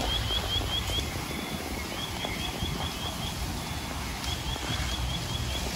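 Fire-scene ambience: a steady low rumble and hiss, over which a high-pitched trill of quick rising chirps repeats about every two seconds, each trill ending in a short flat note.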